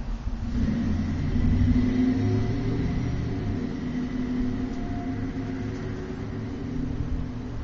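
A motor vehicle's engine passing by, a low rumble with a steady hum that swells to its loudest about two seconds in, then slowly fades.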